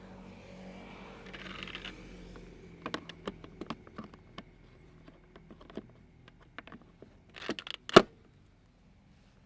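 Plastic side discharge chute being fitted to a lawn mower deck: a run of sharp clicks and rattles, then one loud snap about eight seconds in as it latches into place.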